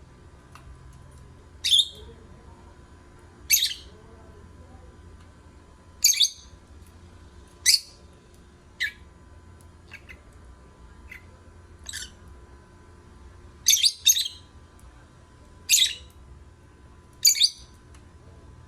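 Pet lovebird giving short, high-pitched chirps, one every second or two, about a dozen in all, a few of them in quick pairs.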